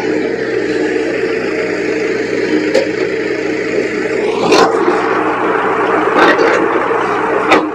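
Crawler excavator working with its diesel engine running steadily, broken by several sharp knocks, the loudest about halfway through.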